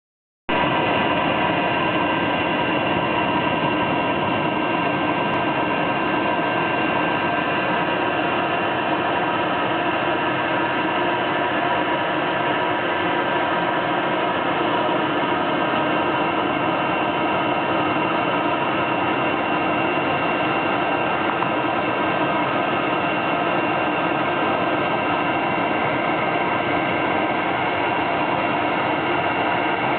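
Electric blow dryer running steadily on a dog's coat, a constant rushing whir with a few steady tones in it, switching on about half a second in.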